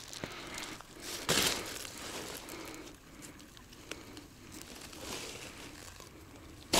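Irregular rustling and crinkling handling noise, with a louder rustle about a second and a half in.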